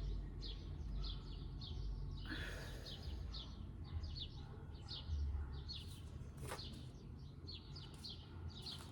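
A bird chirping over and over in the background, quick short chirps a couple of times a second, with a brief rustle a couple of seconds in and a single click past the middle.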